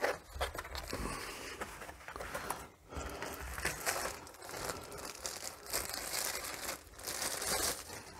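Plastic wrap crinkling and rustling in irregular bursts as a new motorcycle brake disc is pulled from its cardboard box and unwrapped, loudest near the end.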